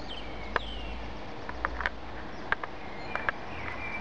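Birds singing in the dark: several short whistled notes that slide down in pitch, with a few sharp clicks among them.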